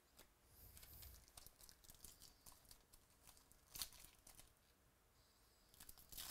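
Faint rustle of trading cards being handled, then the crinkling wrapper of a 2018 Bowman Baseball card pack being gripped and worked open, with a sharper crackle about four seconds in.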